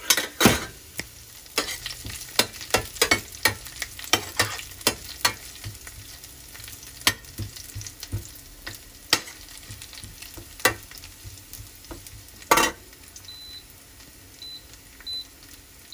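Chopped garlic frying in oil in a stainless steel sauté pan, with a faint steady sizzle. A metal spoon stirs it, clicking and scraping against the pan many times through the first ten seconds, with one louder knock near the end.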